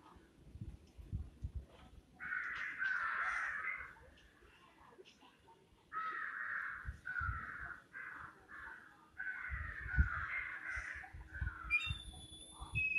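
Crows cawing: harsh, drawn-out calls in three bouts a few seconds apart, with some low thumps between them and a short, clear, high whistle near the end.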